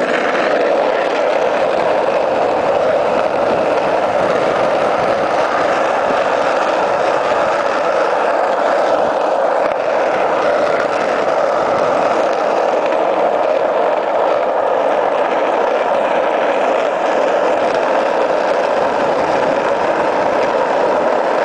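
Skateboard wheels rolling fast over an asphalt street: a loud, steady rolling noise with no let-up.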